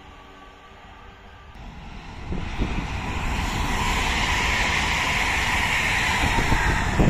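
ČD InterPanter electric multiple unit passing close by at speed. About two seconds in, a loud, steady rush of wheels on rail and running noise sets in, with rumble underneath and a few knocks near the end.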